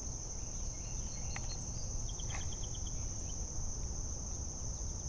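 Steady high-pitched drone of insects such as crickets or katydids in the summer shoreline vegetation. About two seconds in there is a short run of about seven quick chirps.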